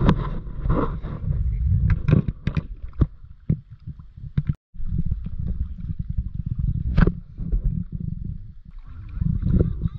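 Kayak paddling on open water: paddle strokes splashing and water gurgling against the boat, over a steady low rumble of wind on the microphone. The sound cuts out briefly about halfway.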